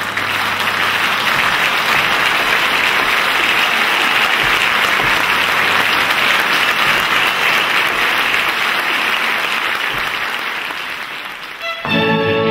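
Concert audience applauding steadily after a live string orchestra performance, the clapping fading a little toward the end. Near the end, bowed string music starts abruptly.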